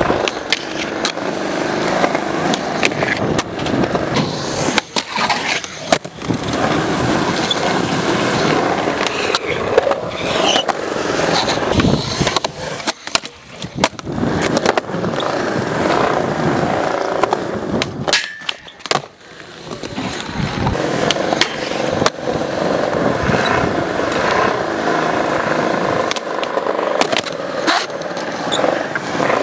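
Skateboard wheels rolling over concrete, broken by repeated sharp clacks of the board popping and landing, with trucks scraping along a concrete ledge.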